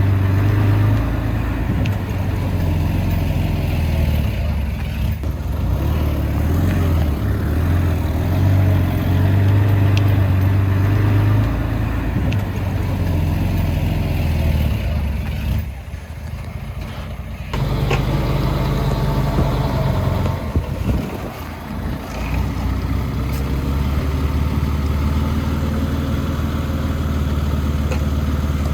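Diesel engine of heavy earthmoving machinery running with a steady low drone. Its sound drops sharply about halfway through, comes back a couple of seconds later, then dips briefly once more.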